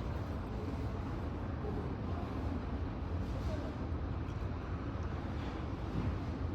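Airport ambience: a steady low rumble with faint voices mixed in.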